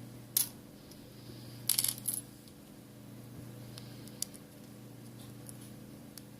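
Small metal parts and tools clinking on a work surface during a phone repair: one sharp click about half a second in, a short metallic clatter around two seconds in, then a few faint ticks.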